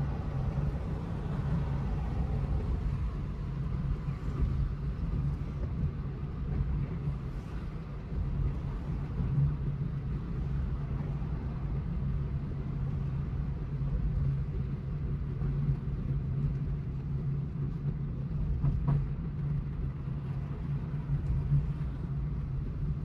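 Car driving on the road: a steady low drone of engine and tyre noise with no change in pace.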